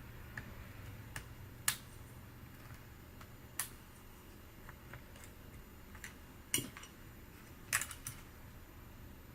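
Scattered sharp clicks and taps of tools and small parts during laptop disassembly, coming at uneven intervals, with the loudest ones about two seconds in and in a double tap near the end.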